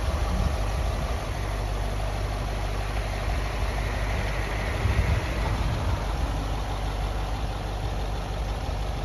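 Range Rover 3.6 TDV8 twin-turbo diesel V8 idling steadily.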